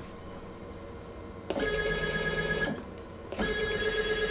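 Stepper motor of a mini lathe's electronic lead screw conversion driving the slide in two short jogs of about a second each: a steady whine that starts about one and a half seconds in and comes again near the end.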